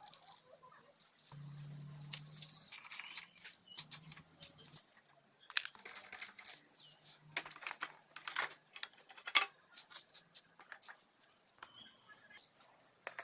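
A hiss with a low hum for a few seconds, then irregular sharp clicks and taps.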